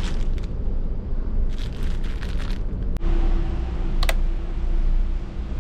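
A plastic-wrapped towel crinkling in the hand in short bursts over the steady low rumble of a ferry's engines. After a cut the engine rumble goes on, with a faint steady hum and a short beep about four seconds in.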